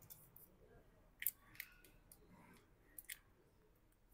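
A few small, sharp clicks of metal tweezers working inside an opened smartphone, two close together a little over a second in and two more about three seconds in, otherwise near silence.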